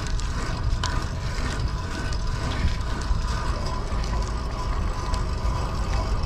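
Wind buffeting the microphone over the rolling noise of a fixed-gear bicycle's tyres and chain on pavement.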